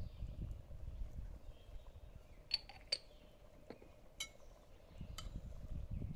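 A few sharp clinks of crockery against a steel cooking pot, two ringing ones about two and a half and three seconds in, then lighter ticks, over a low uneven rumble.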